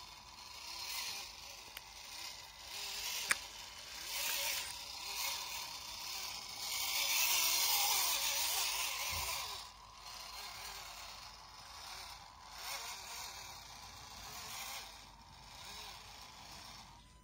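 Small electric motor and gearbox of a radio-controlled scale model Opel Blitz truck whining as it drives through long grass, with the grass swishing against the body and wheels; the swishing is loudest about seven to nine seconds in. A single sharp click about three seconds in.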